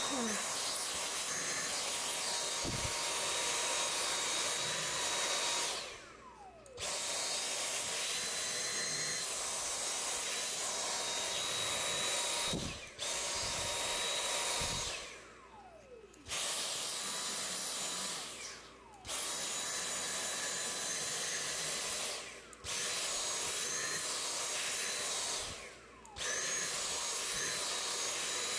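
Dyson cordless handheld vacuum running with a steady high whine, its nozzle drawing on a cat's fur. About six times the motor cuts out and its whine falls away for under a second before it starts up again.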